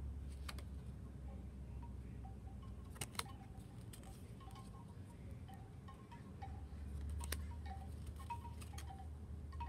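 Chimes ringing softly in scattered single notes, with a few sharp clicks of tarot cards being handled.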